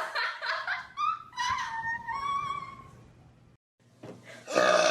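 High-pitched, wavering cries of a small animal, rising and falling in pitch over the first three seconds. A louder, noisy sound starts near the end.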